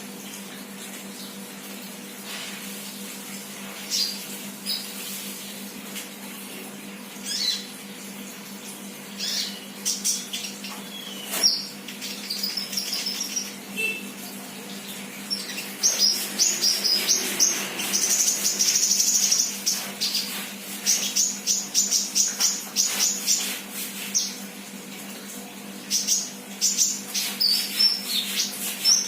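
A young sunbird chirping, with sharp high notes at first and then running into quick, rapid trills about halfway through. A steady low electrical hum runs underneath.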